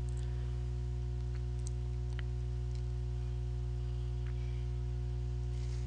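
A steady low hum with a few faint ticks scattered through it.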